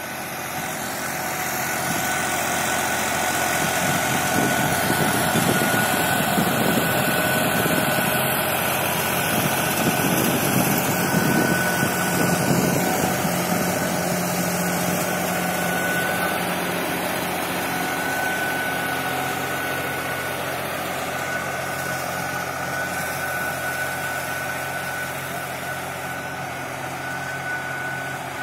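New Holland 6010 tractor's diesel engine running steadily under load as it pulls a seven-tyne chisel plough through dry soil, with a steady high whine over the engine note. It grows louder as the tractor passes close by, near the middle, then slowly fades as it pulls away.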